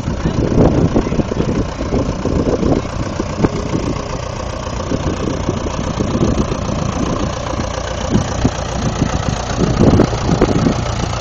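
Vintage tractor engine running at low speed with a steady, uneven chugging rumble as it tows a loaded trailer.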